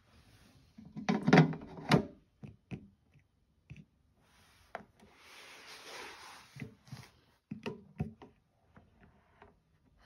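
Hard plastic parts of a Mainstays humidifier being handled: clattering knocks, loudest about a second in, a longer rubbing noise around the middle, then a few light clicks.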